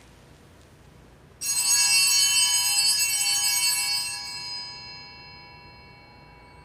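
Altar bells rung at the elevation of the host, marking the consecration at Mass. The bright ringing starts suddenly about a second and a half in, holds for a couple of seconds, then fades away over the next two.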